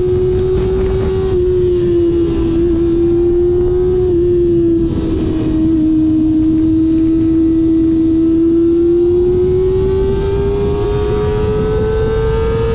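Kawasaki ZX-25R's four-cylinder engine through an aftermarket SC-Project exhaust, ridden at high revs: a steady high-pitched note with short dips about one and four seconds in, then rising slowly through the second half. Wind rumble on the microphone underneath.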